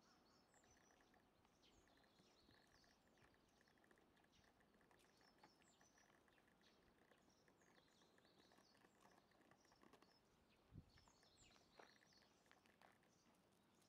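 Faint outdoor ambience of small birds chirping in clusters of short, high notes, with a couple of soft low thumps near the end.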